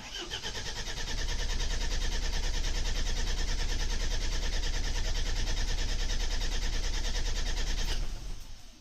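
Mercedes Sprinter diesel engine being cranked on the starter with a fast, even rhythm. It cranks for about eight seconds, then stops. The van has a fuel-injection-pump fault and will not start.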